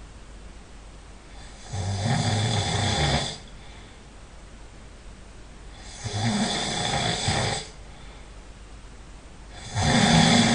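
A person snoring loudly in sleep: three snores about four seconds apart, each lasting a second or so, with quiet breathing between them.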